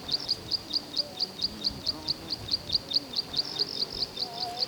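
A high, short chirp repeated very evenly, about four times a second, typical of a calling bird.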